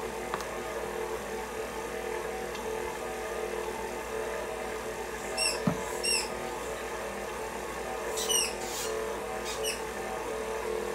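Electric mixer running steadily with a constant motor hum as it mixes butter, vanilla and powdered sugar. A few short, high squeaks come about halfway through and again near the end.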